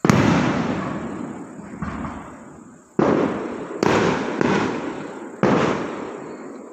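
Aerial firework shells bursting overhead: about half a dozen sudden bangs, four of them loud, each followed by a rolling rumble that dies away over a second or two.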